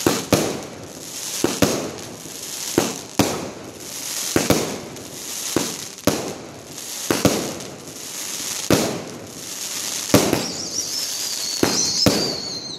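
A 250-shot fireworks cake firing shell after shell, with a sharp bang about every second and a crackle after each burst. A wavering high whistle comes in near the end.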